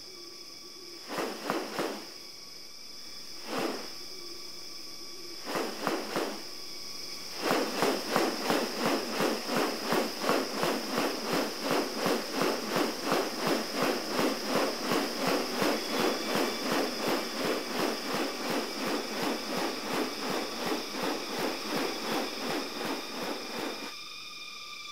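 Rainforest wildlife sounds: a steady insect chorus, with a few short animal calls in the first seven seconds, then a fast, even series of repeated calls, about three a second, that stops shortly before the end.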